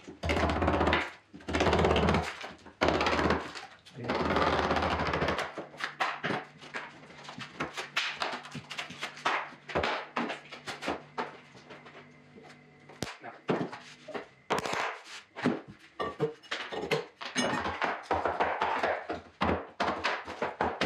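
Cladding being ripped and knocked off old timber beams. There are several longer rough bursts of tearing in the first five seconds, then a string of sharp knocks, thuds and cracks.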